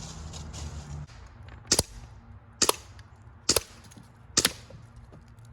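Four shots from a Hatsan Invader .25-calibre air rifle, each a sharp crack, fired about a second apart to empty the magazine.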